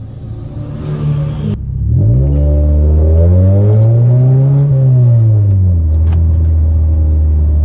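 Car engine revving up smoothly and easing back down, then holding a steady lower speed.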